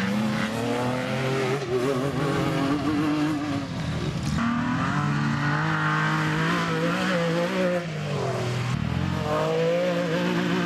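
Mitsubishi Pajero off-road race car's engine revving hard as it drives past, its pitch climbing and dropping back several times.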